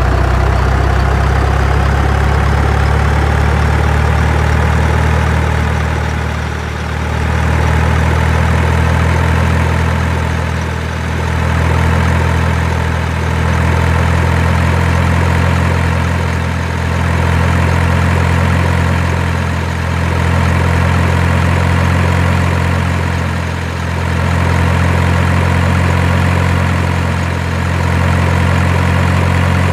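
Heavy truck engine idling, a steady low hum that swells and dips gently every few seconds. It is an engine recording laid over the toy trucks, which have no motors.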